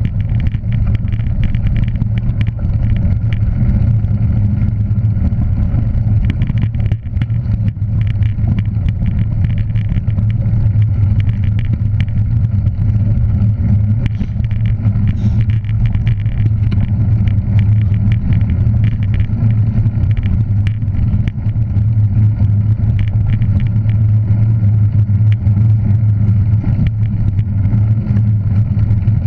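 A road vehicle running at a steady, constant speed: a continuous low engine and road drone that neither rises nor falls.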